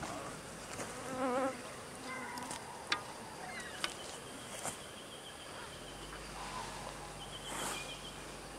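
An insect buzzing briefly close to the microphone, its wavering tone about a second in, over a quiet outdoor background. A few light clicks follow as an arrow is handled and nocked on a recurve bow.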